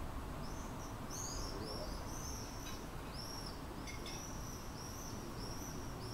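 A small bird chirping: a run of short, high, arched notes, about two a second, over a steady low background hum.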